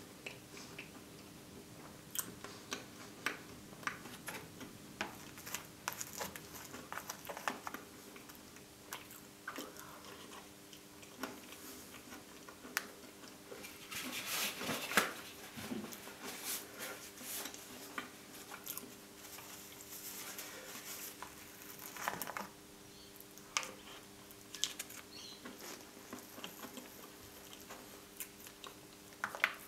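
Close-miked eating sounds of a person chewing and swallowing mouthfuls of a soft chocolate truffle dessert with whipped cream: many short wet mouth clicks and smacks, coming thickest about halfway through.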